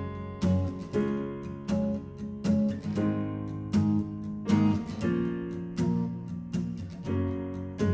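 Acoustic guitar strummed in a steady rhythm with a digital piano playing along: an instrumental intro with no singing yet.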